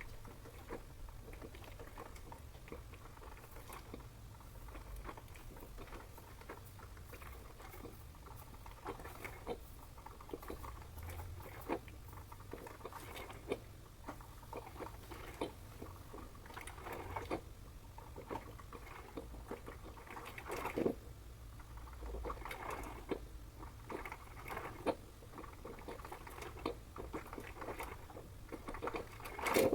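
Panasonic NC-A58 coffee maker running, with many irregular crackles, pops and spits from the heating water, over a low steady buzz. The buzz is the vibration-like abnormal noise that appeared within a month of use and whose cause Panasonic could not name.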